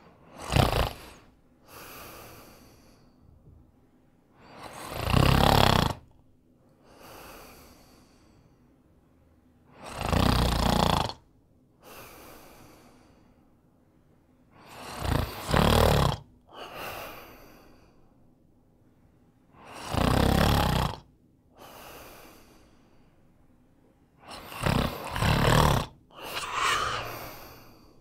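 A man snoring in his sleep: a loud snore about every five seconds, six in all. Each snore is followed a second or so later by a softer breath.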